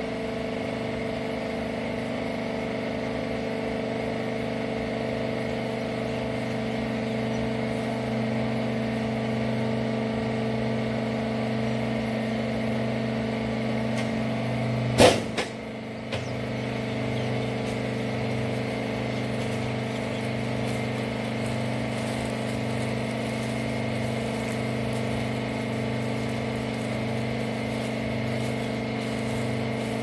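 Hydraulic wiper-rag baling press with its power unit running, a steady hum with several fixed tones. About halfway there is one sharp clunk; the hum dips for a moment, then carries on with its tone slightly changed.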